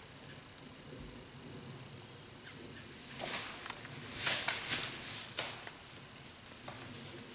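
Footsteps crunching and scuffing on dry fallen leaves as a disc golfer steps through a throw, in two short bursts: one about three seconds in and a louder one just after four seconds. A single light click follows about a second later, over a quiet steady woodland background.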